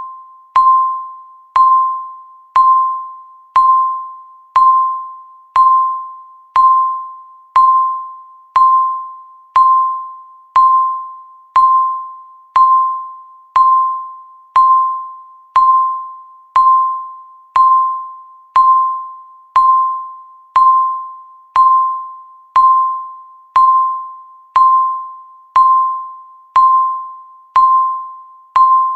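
Countdown timer beep: a single mid-pitched electronic tone with a sharp start and a quick fade, repeating evenly once a second to mark each second left.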